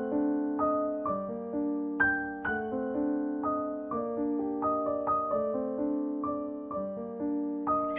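Background music: a piano-like keyboard, tagged as electric piano, playing an even melody of single struck notes about every half second, each ringing on and fading.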